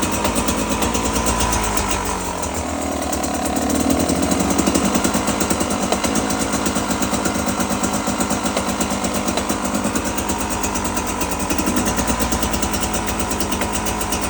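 Brand-new Beta 300 RR two-stroke enduro engine running at low revs, rising a little about four to five seconds in. A clap or knock comes through just off idle, absent at idle and at high revs; its cause is unknown to the owner.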